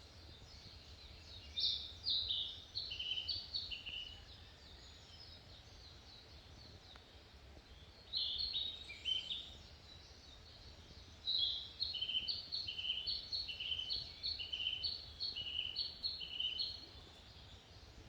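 A songbird singing in three bouts, the last and longest a quick run of short repeated phrases, each stepping down in pitch, over a steady low background rumble.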